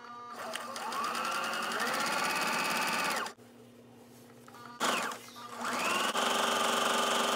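Electric sewing machine running a straight stitch. Its motor speeds up with a rising pitch, runs steadily and stops about three seconds in, then starts again about five seconds in, speeds up and runs steadily.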